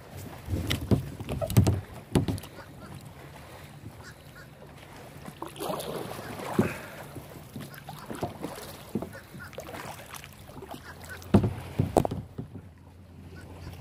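Kayak paddle splashing through the water and knocking against the kayak as the boat rocks off balance, with the loudest knocks near the end as the paddle strikes the bow-mounted camera.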